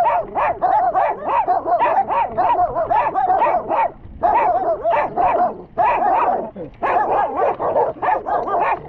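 A dog yipping and barking in rapid high-pitched yelps, about four or five a second, in runs broken by two short pauses.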